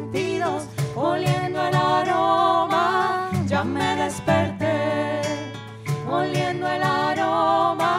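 Live song by a women's vocal trio: several voices singing sustained, wavering notes in harmony over steady low instrumental accompaniment.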